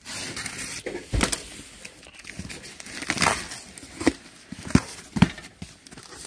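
Packing tape on a cardboard carton slit with a utility knife and the cardboard flaps pulled open: rustling and crackling of tape and cardboard, with several sharp knocks as the box is handled.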